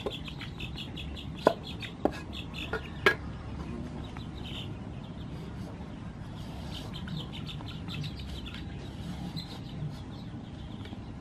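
A cleaver knocking four times on a wooden chopping board while cutting an eggplant, in the first few seconds, over steady chirping of birds, with chickens clucking.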